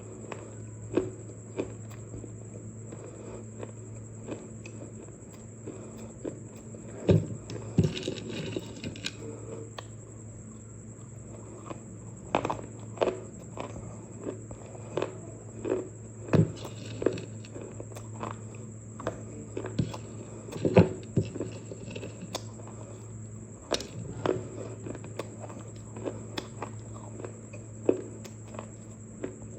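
Irregular sharp crunches and clicks of baked clay pieces being bitten and chewed, over a steady low hum.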